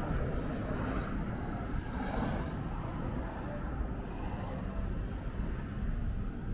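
Street ambience: a steady low rumble of road traffic, with a vehicle passing about a second in.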